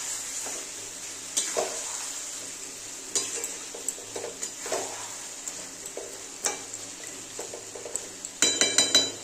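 Metal spatula stirring and scraping raw chicken pieces through sizzling onion-and-spice masala in a frying pan, the early stage of frying down a chicken kosha. Irregular scrapes and knocks sound over a steady frying hiss, with a quick run of louder clatters near the end.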